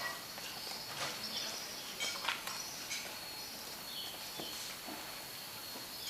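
Rural outdoor ambience: a steady, high, thin insect drone with scattered short bird chirps and a few brief clicks.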